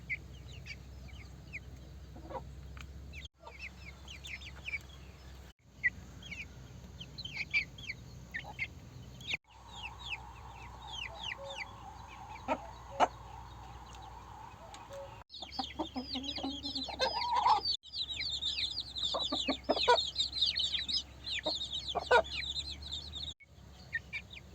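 Chickens clucking, with many short, high chirps throughout that become dense and continuous in the last third. The sound breaks off abruptly several times where short clips are joined.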